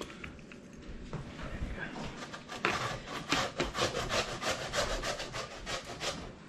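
Raw potatoes being grated by hand on a grater: a rhythmic run of rasping strokes, about three a second, faint at first and then clear from a little past halfway.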